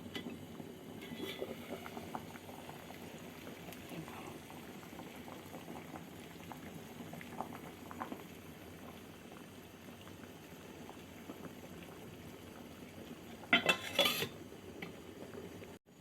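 A pot of pear soup at a steady boil, bubbling with small scattered pops. A brief loud clatter of a few quick knocks, like a utensil or lid on the pot, comes near the end.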